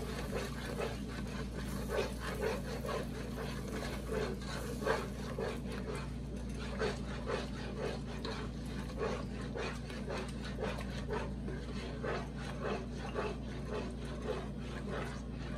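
A spatula stirring and scraping a thick roux-and-cream sauce around a metal pot, about two strokes a second, as heavy cream is poured in and the sauce thickens. A steady low hum runs underneath.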